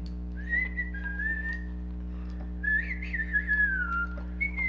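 A person whistling a tune in several short wavering phrases, one sliding down in pitch near the end, with a few faint clicks of the toy's plastic parts being handled over a steady low hum.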